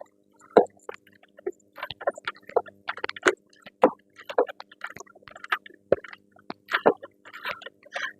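Metal sockets and a socket wrench clinking and knocking irregularly, a few sharp clicks a second, as sockets are tried on the strut's top nuts to find the size that fits, over a faint steady hum.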